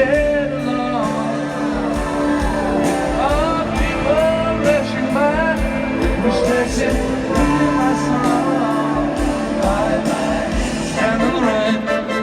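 Live rock band playing with an orchestral-style arrangement, a sung vocal line over a steady drum beat, heard through the reverberant sound of a stadium.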